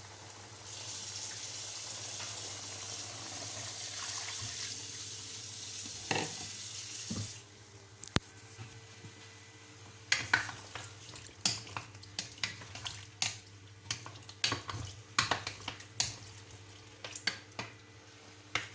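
Water pouring into the pot of cooking meat for about seven seconds, then stopping abruptly. It is followed by a run of sharp, irregular knocks and clatters.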